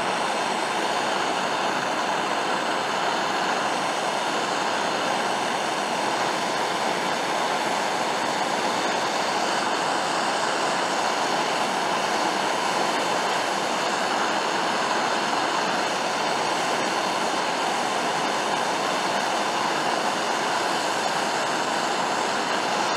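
Steady hiss of a handheld gas torch flame held on an aluminum outboard skeg, heating it for aluminum welding rod; the metal is just short of hot enough for the rod to wet out.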